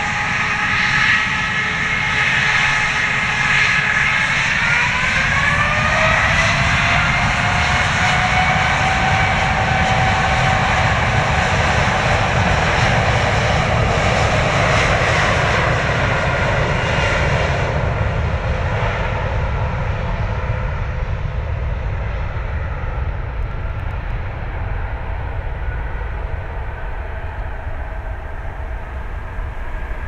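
Jet airliner's engines running close by, a whine with several tones that rises in pitch about five seconds in. In the second half the sound fades and dulls as the aircraft draws away.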